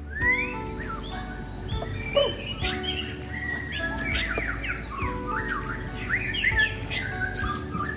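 White-rumped shama (murai batu) singing a fast, varied run of whistled phrases and chirps, over a steady low hum.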